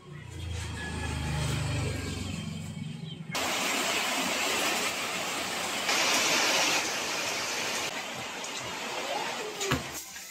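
Rain falling, a steady hiss. A low rumble lies under it for the first few seconds, and about three seconds in the hiss steps up abruptly, louder.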